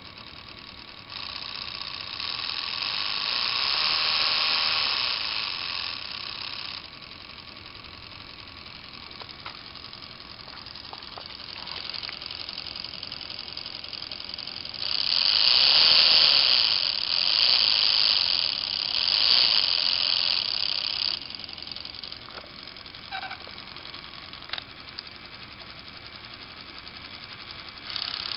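Lego Power Functions electric motor whirring through plastic gearing, a steady high whine. It grows louder about a second in for roughly six seconds, and again from about fifteen to twenty-one seconds, with a few single clicks after that.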